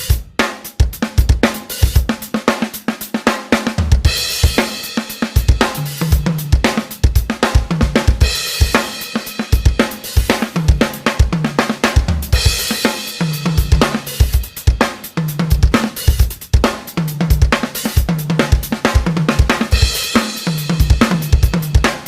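Drum samples finger-drummed on a Maschine Mikro MK3 pad controller: a busy groove of kick, snare and hi-hats with cymbal crashes about every four seconds, over short low bass notes.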